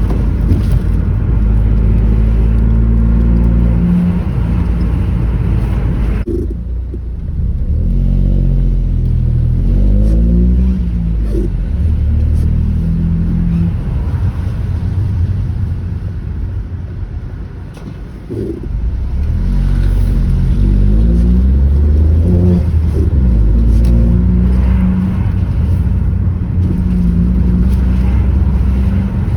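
Ford Focus 1.0 EcoBoost three-cylinder turbo engine being driven, its revs rising and falling several times through the gears, with a brief drop in level a little past halfway.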